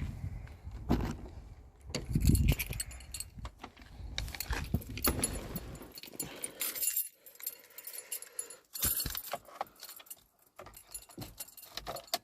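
Keys jangling, with irregular knocks and a couple of heavy thumps near the start.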